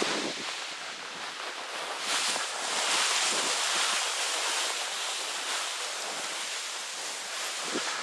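Tall dry grass swishing steadily as someone walks through it, the stems brushing past legs and gear in a continuous hiss that swells a little about two seconds in.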